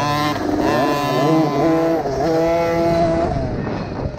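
A 50cc two-stroke motocross bike engine revving hard under the rider. Its pitch rises and falls in steps as the throttle is worked, holds level for about a second past the middle, then drops off near the end.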